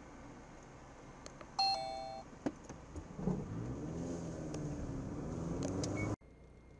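A short two-tone car horn beep about a second and a half in, then a car engine accelerating with its pitch rising and dipping, growing louder until the sound cuts off suddenly about six seconds in.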